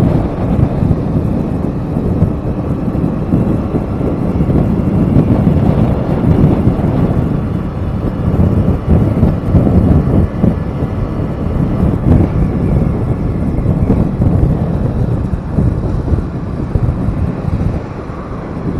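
Small motorbike riding along, with wind rushing and buffeting over the microphone over the bike's engine and road noise.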